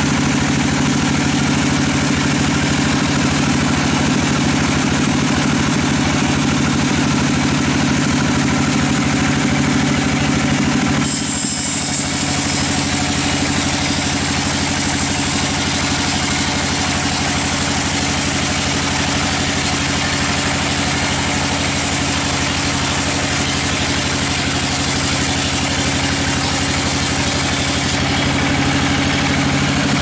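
Sawmill log band saw running with a steady, loud motor hum. About a third of the way in the sound shifts and a bright hiss joins as the blade saws along a teak log, easing off again near the end.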